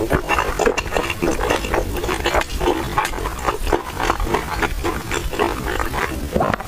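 Close-miked chewing and mouth noises from eating crispy-skinned Chinese stuffed buns: many rapid, irregular smacking clicks, several a second.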